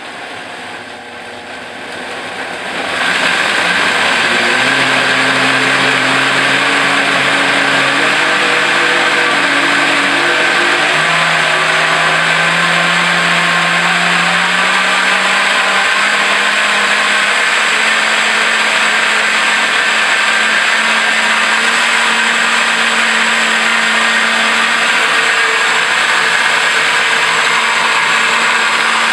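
Cleanblend 3-horsepower blender motor starting up and building to full volume over the first three seconds, its pitch stepping up as the speed dial is turned higher, then running steady at high speed. It is blending a thick banana and date smoothie.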